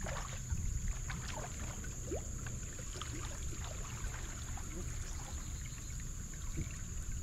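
Light splashing and small clicks as a hooked bass is played beside a bass boat, the fish thrashing at the surface near the end, over a steady low rumble of wind and water and a steady high whine.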